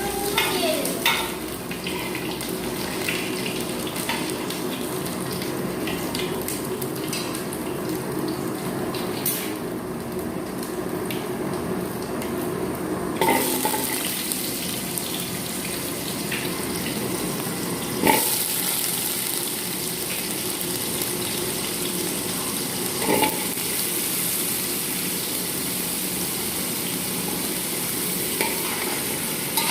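Food frying in hot oil in a cooking pan, with a steady sizzle and a few sharp clacks of a utensil against the pan; the sizzle grows brighter about halfway through.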